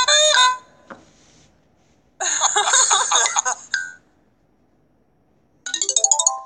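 Sound effects from a children's Bible story app: two short bursts of electronic tones, then near the end a quick rising run of chime notes that marks a found Bible gem.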